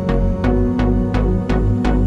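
Electronic background music with a steady beat of about three drum hits a second over a heavy bass line.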